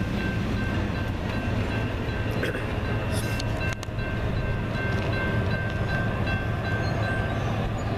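Steady rumble of a double-stack freight train moving away past the crossing, with a thin, high steady whine that stops near the end.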